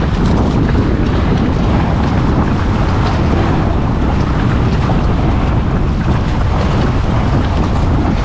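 Steady wind noise rumbling on the microphone, with sea surf washing against a rocky shore beneath it.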